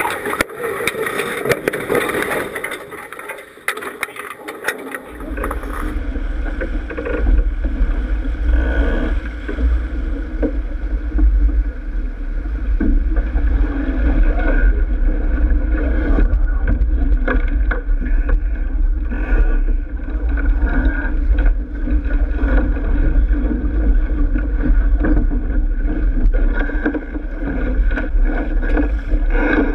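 Water rushing and splashing along the hull of a racing sailboat under way. A steady low rumble comes in about five seconds in and continues.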